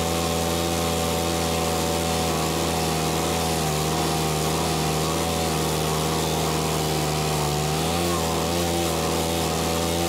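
Small walk-behind stump grinder's gas engine running at full throttle while its cutter wheel grinds down a dead ash stump. The engine note holds steady but wavers slightly as the wheel bites into the wood.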